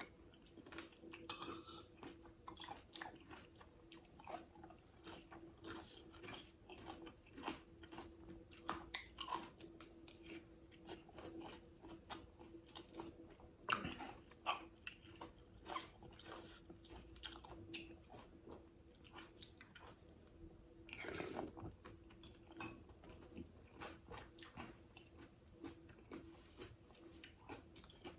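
Close-miked eating sounds: a person chewing and biting into fish soup with rice, with many small irregular mouth clicks and smacks over a faint steady hum.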